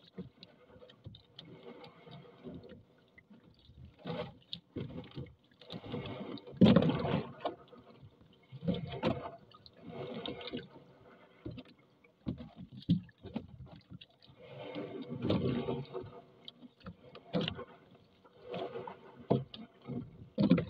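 Wet fishing net being hauled by hand into a small boat: irregular splashes and swishes of water and net, one every second or two, the loudest about seven seconds in.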